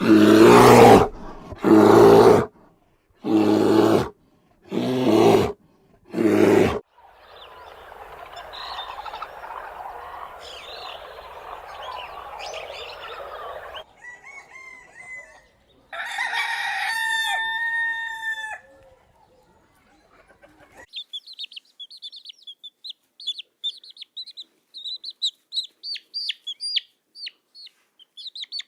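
Chickens: five loud calls in a row, then a stretch of clucking, then a rooster crowing in one long call about two-thirds of the way through. High, rapid chirping fills the last several seconds.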